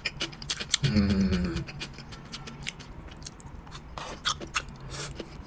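A person chewing food close to the microphone, a run of short crisp crunching clicks, with a brief hummed sound about a second in.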